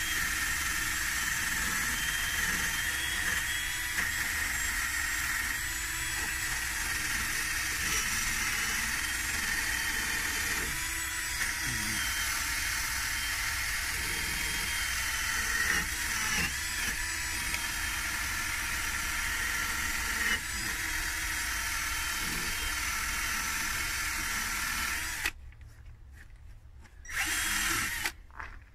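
Cordless drill spinning a wire wheel brush against a rusty rear brake caliper bracket, scouring off rust before new rotors go on. It is a steady high whine with a scratchy grind that stops a few seconds before the end, followed by one short final burst.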